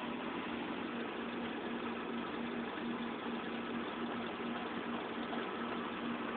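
2007 Mini Cooper's four-cylinder engine idling roughly, its low hum pulsing unevenly. The owner hears the idle fluctuate and sag as if about to stall, and does not believe it is normal.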